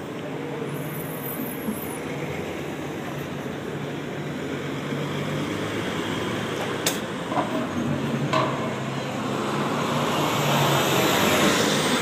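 City street traffic: a vehicle engine running over the steady road noise. Two sharp clicks come midway, and the noise swells louder near the end.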